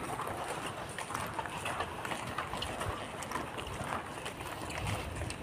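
Slow shuffling footsteps on a wet road, with scattered small ticks over a steady outdoor hiss and low rumbles on the phone's microphone.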